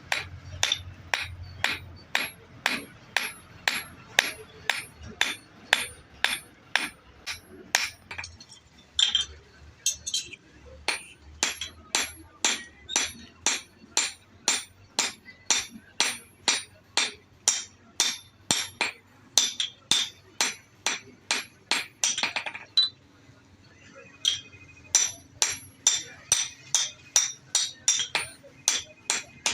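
Hand hammer striking metal on an anvil in a steady rhythm, about two blows a second, each with a bright metallic ring, as a hatchet head is forged. The blows stop for about two seconds past the middle, then start again slightly faster.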